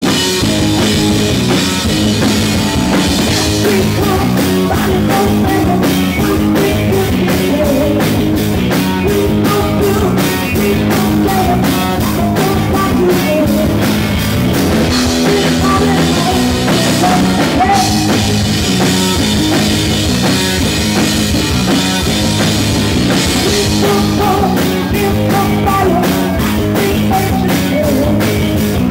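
Live rock band playing loudly: electric guitar, electric bass and a drum kit driving a fast, steady beat.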